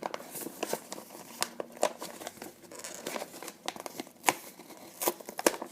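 Plastic packaging crinkling and rustling in irregular bursts of crackles as a small silver bar is pulled out of it.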